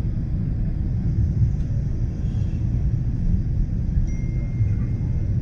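Steady low cabin rumble of a Boeing 777-300ER in flight: engine and airflow noise heard from inside the passenger cabin.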